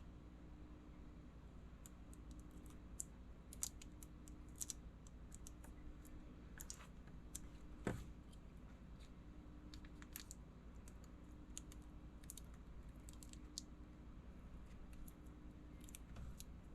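Faint scattered clicks and light taps of small repair tools handling an iPhone battery cell, with one louder click about eight seconds in. A faint low hum pulses on and off about once a second underneath.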